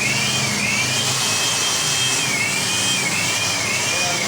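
Electric hand blower running: a steady rush of air with a high motor whine that wavers up and down, blowing dust off carved wood.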